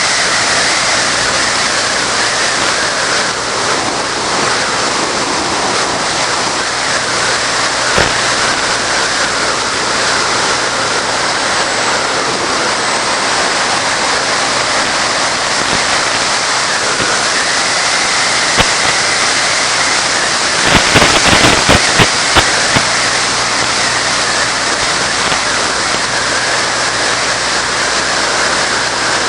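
Onboard audio of a Bixler electric model airplane in flight: a steady, loud rushing hiss with a faint whine that drifts up and down in pitch. A short burst of crackling comes about two-thirds of the way through.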